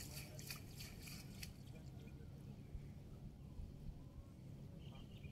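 Water splashing and trickling as a cast net is drawn in through shallow water, with several small splashes in the first second and a half, then only faint water sounds.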